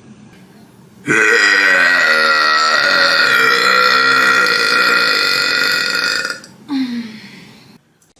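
A person belching: one long, loud, drawn-out burp of about five seconds, with a wavering pitch, followed by a short burp that falls in pitch.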